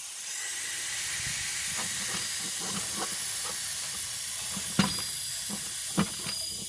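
Steady hiss of compressed air flowing through an air-shock air line, with two sharp knocks near the end.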